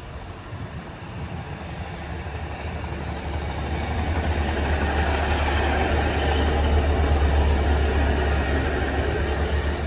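Class 150 Sprinter diesel multiple unit running alongside the platform and past. Its underfloor diesel engines make a steady low hum under wheel and rail noise, growing louder as the train draws level.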